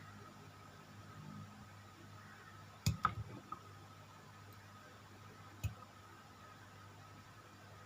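A few sharp clicks and taps of plastic model-kit parts and tools being handled: a quick cluster about three seconds in and a single click later, over a faint steady hum.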